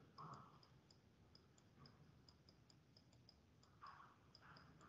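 Near silence: room tone with faint, regular ticking, about four ticks a second.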